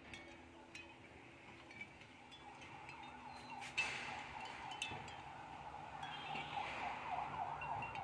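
Seashell wind chime clinking in the breeze: scattered light, high-pitched clinks with a brief ring, one a little louder near the middle.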